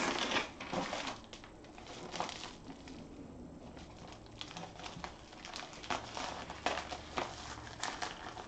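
Plastic bubble mailer crinkling and rustling as it is handled and slid on a table, in short irregular rustles with a quieter stretch about three seconds in.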